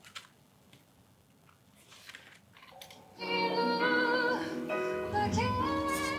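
Near silence with a few faint clicks for about three seconds, then music with a singing voice starts and plays on.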